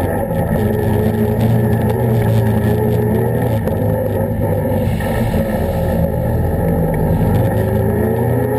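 Can-Am ATV engine running as the quad is ridden, the revs dipping and rising several times, with steady rushing noise from the wheel well.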